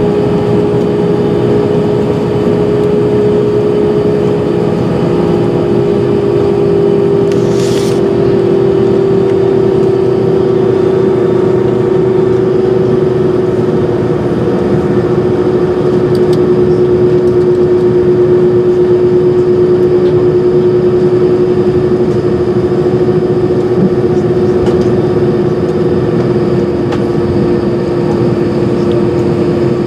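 Airbus A320 jet engines running steadily, heard from inside the cabin: a constant drone with one strong tone that drops slightly about six seconds in. A brief hiss comes about eight seconds in.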